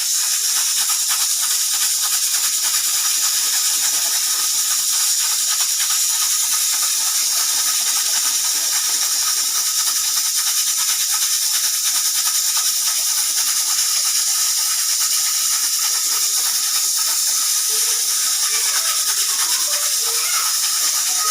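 Pressure cooker hissing steadily as steam escapes, with a fine rattle in the hiss, and no whistle blowing. Faint wavering tones come in near the end.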